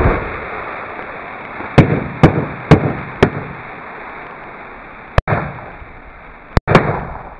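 About ten thousand bundled firecrackers going off at once: one huge blast at the start, then a long crackling, hissing roar of burning that slowly dies down, broken by several separate sharp bangs from leftover crackers.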